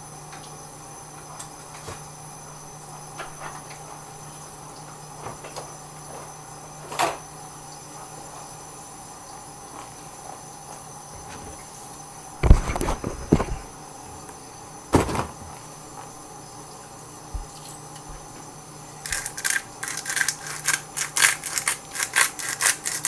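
Steady kitchen room tone with a faint hum. A few knocks near the middle, as things are picked up and set down. Then, for the last few seconds, a fast, uneven rattle of clicks as a seasoning shaker is shaken over the pork loin to put on salt and pepper.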